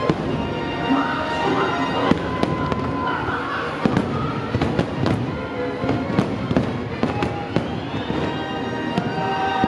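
Fireworks shells bursting with sharp bangs and crackles at irregular intervals, about one or two a second, over the show's music soundtrack with sustained tones.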